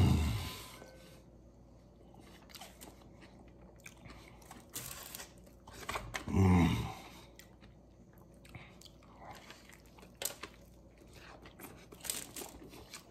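A man chewing a mouthful of burrito, with faint wet mouth noises and small clicks. Two short vocal sounds made with his mouth full break in, one at the start and a louder one about six and a half seconds in.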